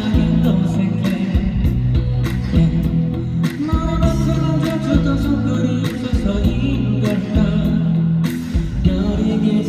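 Live band music with a steady drum beat, bass and guitar under a male voice singing.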